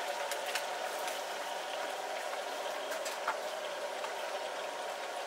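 Skewered battered food deep-frying in a wok of hot oil: a steady sizzling and bubbling, with a few clicks along the way.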